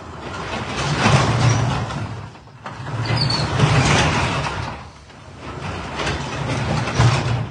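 Sectional garage door rolling along its tracks, its rollers rumbling in three long swells as the door travels. The door will not hold where it is let go, which is the sign of the wrong springs on the door.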